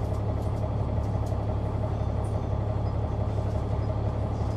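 Caterpillar C-9 ACERT diesel engine of a Neoplan AN459 articulated bus running steadily, heard from the rear seats inside the cabin, with a constant low hum.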